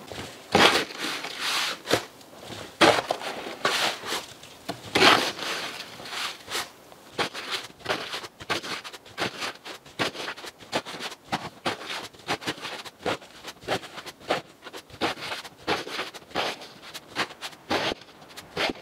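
Snow shovel scraping and scooping snow and ice off a concrete floor in repeated strokes. A few heavier scrapes come in the first six seconds, then quicker, lighter scrapes at about two a second.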